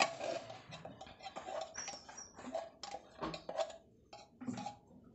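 Faint, scattered clicks and light knocks of a tin can being handled and tipped to pour chocolate condensed milk into a plastic tub.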